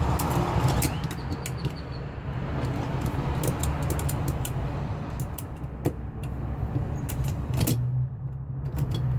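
Small sharp clicks and metallic handling noises from a 600 series mechanical code lock and its keys being worked by hand, scattered irregularly over a steady low hum.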